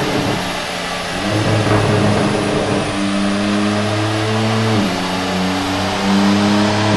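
2024 BMW M2 G87's twin-turbo straight-six running through an Akrapovic slip-on exhaust on a chassis dyno, with a steady engine note. The pitch steps up a little over a second in and drops again near five seconds as the gears change from 4th to 3rd and back to 4th.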